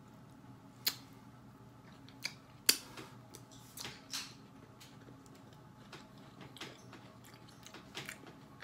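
A person chewing a mouthful of gyro close to the microphone: scattered short wet mouth clicks and smacks, the sharpest a little under 3 seconds in.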